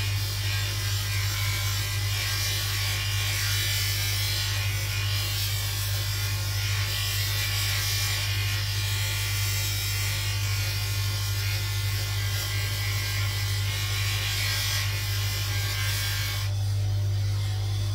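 High-speed polishing wheel's motor running with a steady hum while a brass handle is held against the compound-loaded buffing mop, giving a continuous rasping hiss. About 16 seconds in the hiss stops as the brass comes off the mop, and the motor keeps running.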